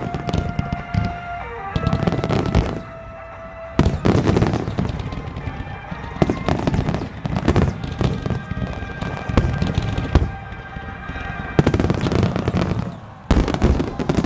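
Aerial firework shells bursting in a rapid finale barrage, booms and crackles coming thick and fast with two brief lulls, about three seconds in and near the end. Music plays underneath.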